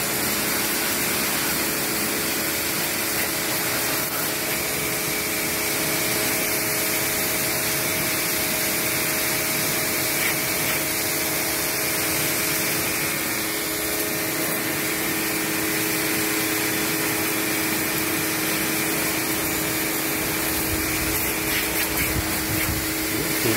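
Fujihama pressure washer running: its motor and pump hum steadily under the hiss of the high-pressure water jet spraying onto bicycle wheels and frames.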